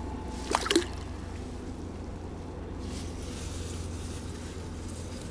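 Steady low rumble of wind on the microphone by the water, with two quick sharp clicks about half a second in.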